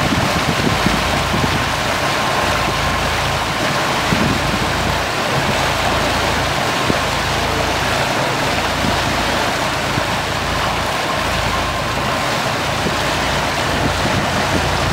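Small fishing boat under way: its engine running steadily, with water rushing and churning in the wake.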